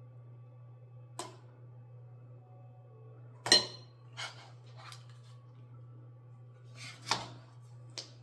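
Kitchen clatter: six separate sharp clicks and knocks of utensils and baking gear handled on a counter, the loudest about three and a half seconds in, over a low steady hum.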